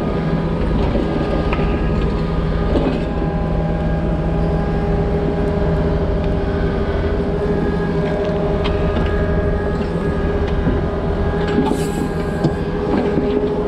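Takeuchi compact excavator's diesel engine and hydraulics running steadily under load while digging and swinging. A few sharp knocks and clanks are heard as the bucket works and drops dirt into a dump truck bed, the clearest near the end.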